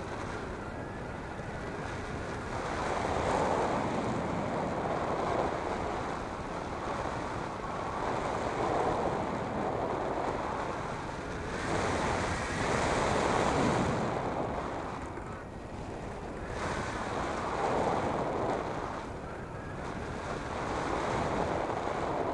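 Wind rushing over the microphone of a hang glider in flight, swelling and easing every few seconds.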